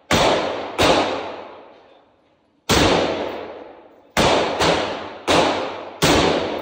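Seven shots from a Smith & Wesson M&P15 AR-15-type rifle, fired at uneven intervals with a pair close together in the middle. Each one rings out in the long echo of an indoor range. They are sighting-in shots for a newly mounted EOTech sight.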